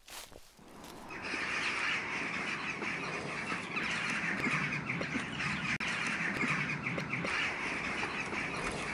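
A dense chorus of many birds calling together, starting abruptly about a second in.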